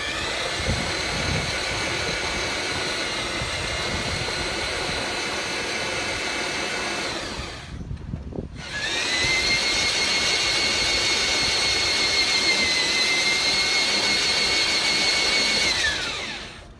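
Large electric reversing drill driving the elevation gearbox of a quadruple 40 mm Bofors gun mount: it runs steadily for about seven seconds to raise the barrels, stops briefly, then runs in reverse for about seven seconds to lower them. Its whine holds a steady pitch on each run and slides down as it stops.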